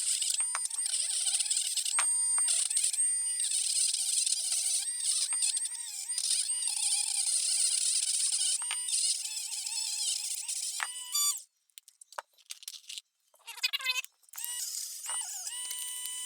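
Dremel rotary tool running against the steel of a pair of pliers, a hissing grind with a steady high whine, scouring surface rust out of the tight spots. It stops about 11 seconds in with a short rising whine, goes nearly silent, and starts again about 14 seconds in.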